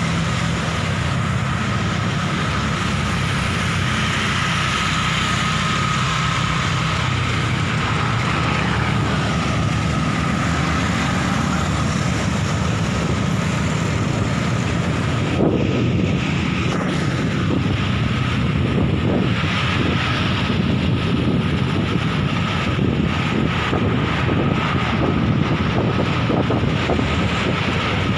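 Street traffic running steadily, motorcycles and cars in the same lanes, heard from a moving bicycle. About halfway there is a single knock, then wind buffets the microphone.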